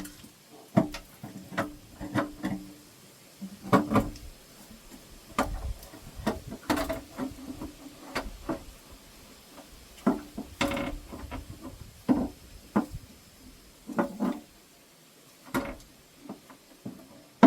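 Irregular knocks and clanks of hand tools and metal parts as the oil pan is worked off a big-block Chevy engine, some strikes with a short metallic ring.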